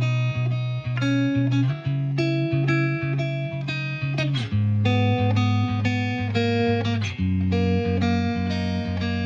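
Background music: a guitar track with plucked notes changing at a steady pace over a bass line.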